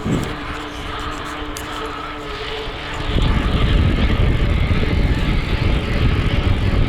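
Wind rumbling on the microphone while riding a bicycle, with a faint steady hum for the first three seconds; the rumble grows louder about three seconds in.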